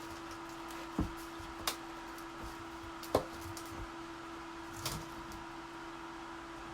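Four scattered knocks and clinks of paint cans being moved and handled while searching through them, over a steady low hum.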